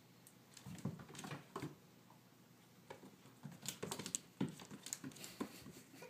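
A kitten's paws and claws pattering and scrabbling on a wooden floor as it pounces and spins after a laser dot. The taps come in two quick flurries: a short one about a second in, and a longer one from about three seconds until near the end.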